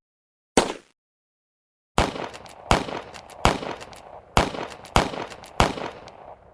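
Gunshots: a single short, clipped shot, then after a pause of about a second six more shots, fired roughly one every three-quarters of a second, each trailing off in an echo.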